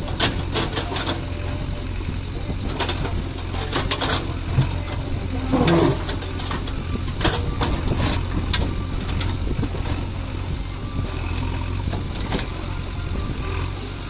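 JCB 3DX backhoe loader's diesel engine running steadily under load while the backhoe bucket digs among loose stones, with sharp knocks and clanks of stone and steel now and then.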